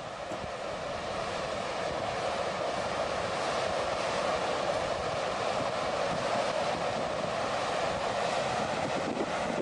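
Flash flood of thick muddy water and debris rushing past in a steady, continuous rush that grows a little louder after the first second.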